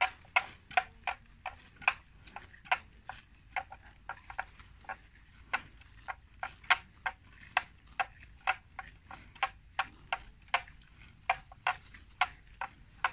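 Water buffalo eating plants: an irregular run of sharp crunching clicks, about three a second, as it tears and chews the vegetation.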